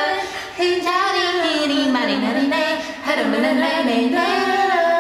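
Unaccompanied a capella singing by voices, long held notes that slide up and down in pitch.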